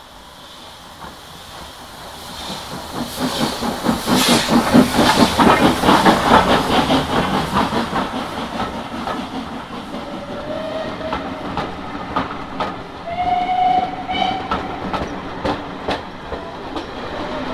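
Steam-hauled train approaching and passing close by, with a fast rhythmic clatter that swells to its loudest a few seconds in and then eases off. A few brief high-pitched tones sound in the second half.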